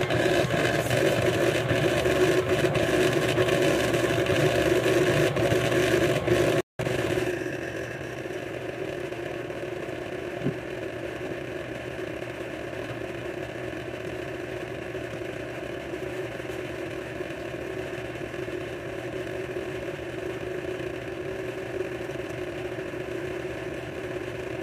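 Electric kitchen mixer running steadily on medium speed, beating butter and sugar into a flour mixture. The motor hum is louder for the first several seconds, then, after a brief cut, carries on more quietly.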